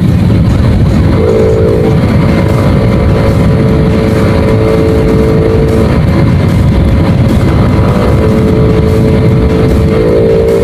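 Honda Wave 110i's single-cylinder four-stroke engine running at a steady cruise while riding, its intake louder because the filter element is removed and the airbox drilled, under heavy wind buffeting on the microphone. A steady engine hum comes in about a second in, fades midway and returns.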